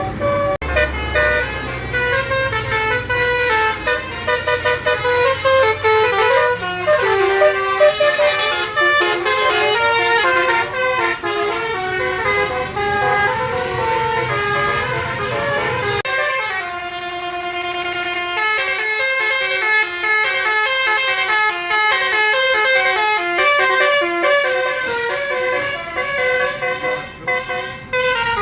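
Telolet Basuri multi-tone musical bus horn playing a fast melody of stepping horn notes, with a low engine rumble under the first half.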